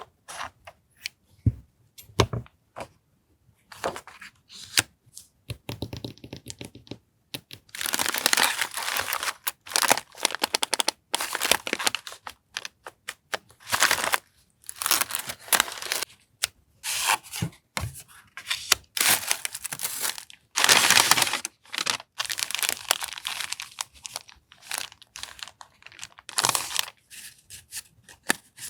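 Paper and plastic packaging of stationery items rustling and crinkling as they are handled and unwrapped: many short bursts, with a few longer crinkles of a second or two.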